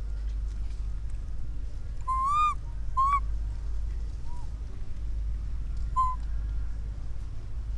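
Baby monkey giving short, high-pitched calls for its mother, four in all: a longer arched call about two seconds in, a short rising one a second later, a faint one, and another near the six-second mark. A steady low rumble runs beneath them.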